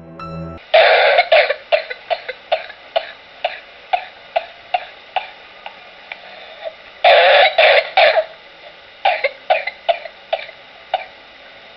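A person coughing in a long fit. It opens with one hard cough, runs on as short coughs about two a second, has a louder cluster of coughs about seven seconds in, and ends with a few more short coughs.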